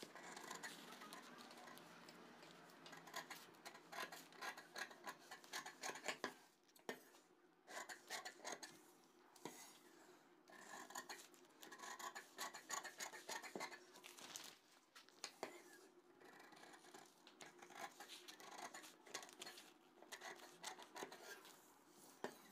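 Scissors cutting through newspaper to cut out a paper blouse pattern: faint runs of quick snips and paper rustling, stopping and starting with short pauses.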